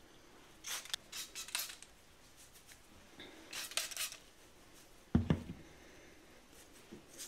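Short scratchy, hissing bursts of a plastic applicator bottle squirting liquid onto the scalp and fingers rubbing it in between the locs, then a single knock about five seconds in as the bottle is set down on the table.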